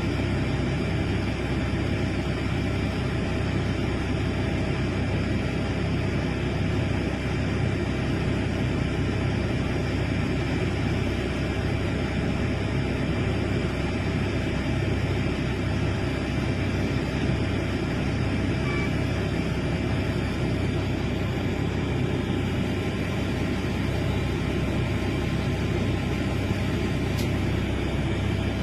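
Large excavator engine running steadily: a constant low drone with a faint steady high whine above it.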